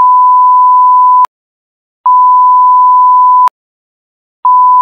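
Censor bleep: a loud, steady pure tone in three long beeps with dead silence between them, the last starting near the end. It masks the address being read aloud on the phone call.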